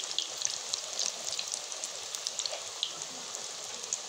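Besan-and-onion-coated egg pakoras deep-frying in hot oil: a steady sizzle dotted with many small, quick crackles and pops.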